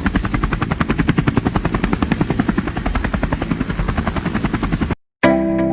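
Helicopter rotor blades chopping in a rapid, steady beat that cuts off suddenly about five seconds in. Plucked guitar music starts right after.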